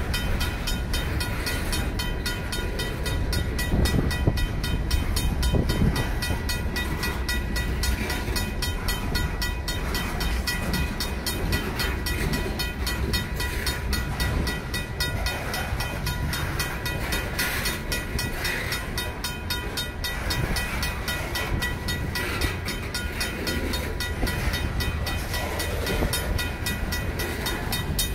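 Union Pacific freight train's boxcars and covered hoppers rolling past, steel wheels rumbling and clicking over the rails. Over it, the grade crossing's RACO mechanical bell rings in a fast, steady stream of strokes.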